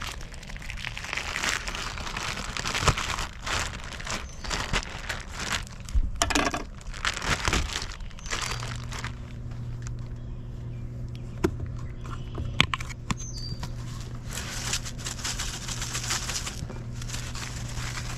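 Plastic packaging crinkling and rustling as it is handled, in irregular bursts with a few sharp clicks.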